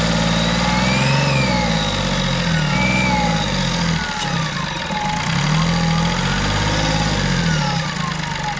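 Three-cylinder turbodiesel car engine held above idle and revved up and back down in three swells, running on without cutting out now that its injectors have been repaired.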